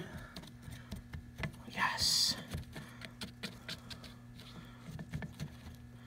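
Metal tongs scraping and clicking against a small metal crucible as they stir molten zinc, in many small irregular clicks over a steady low hum.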